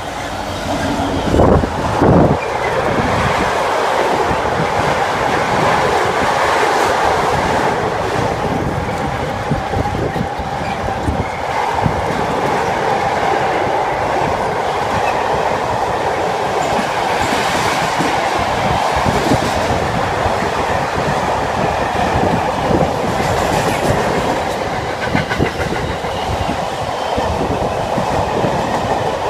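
Class 66 diesel freight locomotive passing at speed, with two loud thumps about a second and a half and two seconds in as it goes by, followed by a long rake of car-carrier wagons rolling past, wheels clattering over the rail joints.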